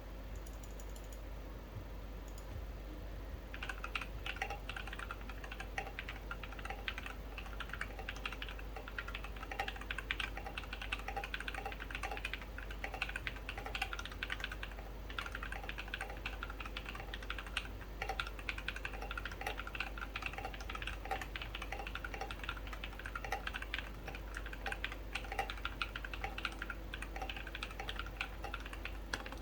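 Typing on a wooden-case mechanical keyboard with lubed black linear switches and SA-profile keycaps: a quick, continuous run of keystroke clacks that gets going about three and a half seconds in.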